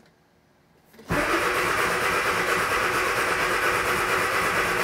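Classic Mini's turbocharged A-Series engine cranking on the starter motor, beginning suddenly about a second in and running steadily with a fast even rhythm without catching.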